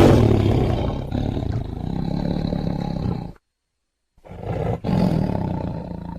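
Tiger roaring twice. A long roar, loudest at its start, fades out over about three seconds. After a brief pause a second, shorter roar follows.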